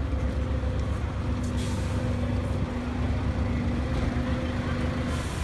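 Heavy diesel fire engines idling with a steady low rumble, joined about a second in by a steady hum. A brief hiss comes near the end.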